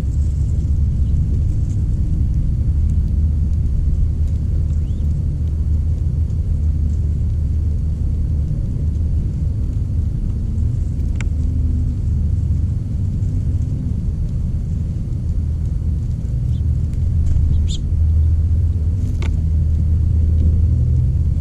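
A steady low rumble, with a few brief high bird chirps: one about eleven seconds in and two more near the end.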